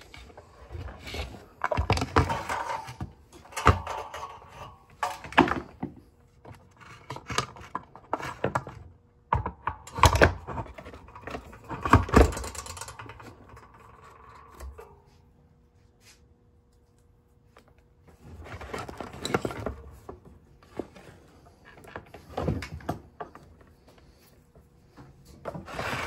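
Plastic housing parts of a Honeywell space heater clunking and scraping together as the tower is fitted back onto its base, with two louder thunks about ten and twelve seconds in.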